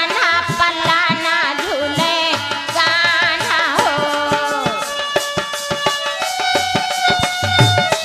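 Sohar folk song: a singer's voice with heavy vibrato in the first half gives way to steady held melody notes. A dholak drum keeps a rhythm throughout, with deep bass strokes near the end.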